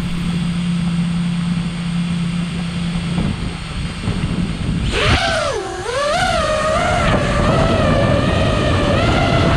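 FPV racing quadcopter's brushless motors and propellers: a steady low hum while armed on the ground, then about five seconds in the throttle comes up, the pitch dipping and rising before settling into a steady high whine.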